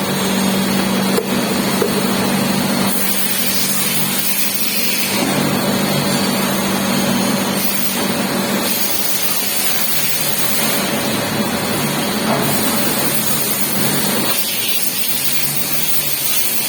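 CNC vertical machining centre running a drilling cycle: a steady hum under a hiss that grows and fades in steps of a few seconds as the cycle moves on.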